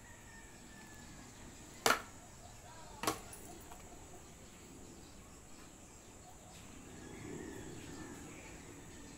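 Two sharp plastic clacks a little over a second apart as a Belgian Malinois snaps at a plastic water bottle dangled on a string.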